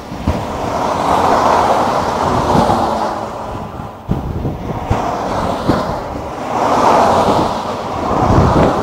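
Cars passing at motorway speed, their tyre and engine noise swelling and fading as each goes by, loudest about a second in and again near the end. Wind buffets the microphone with an uneven low rumble.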